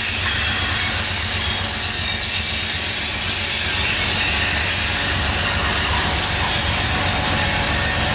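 Loaded covered hopper cars of a CSX phosphate freight rolling past: a steady low rumble of wheels on the rails under an even high hiss, with faint thin high squealing tones from the wheels.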